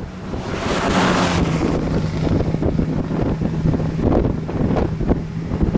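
Strong wind buffeting the camera microphone in uneven gusts, the strongest about a second in, with a steady low hum underneath.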